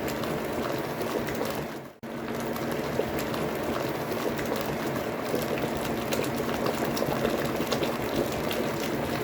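Water boiling hard around a homemade 10 kW immersion heater element: a dense, crackling, bubbling rush over a faint steady hum. It breaks off for an instant about two seconds in.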